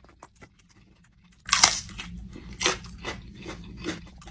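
Someone eating and chewing: faint small mouth clicks at first, then from about a second and a half in a run of louder, sharp crunching and chewing sounds.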